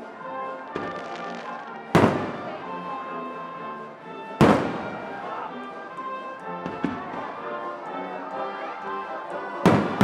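Aerial firework shells bursting with loud booms, one about two seconds in, one at about four and a half seconds and one near the end, with fainter pops between. Music plays underneath throughout.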